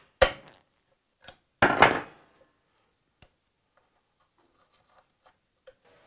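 Metal hand tools clanking and clinking as a torque multiplier and socket are fitted onto a bolt on a motorcycle's swingarm pivot. A few sharp knocks come in the first two seconds, one ringing briefly, then faint ticks.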